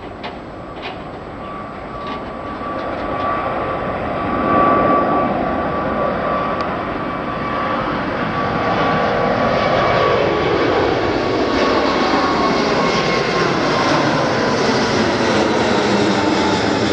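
Emirates Airbus A380's four turbofan engines at takeoff power on climb-out, passing overhead: a jet roar that builds to full loudness within about five seconds, with a steady high fan whine. Past about ten seconds the engine tones slide down in pitch as the jet passes over.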